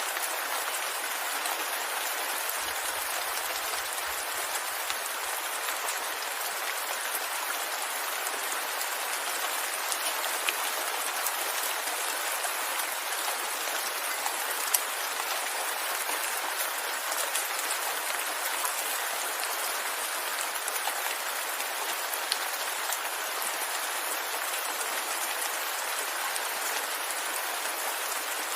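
Steady rain falling, an even hiss of many drops, with a few sharper ticks of single drops standing out now and then.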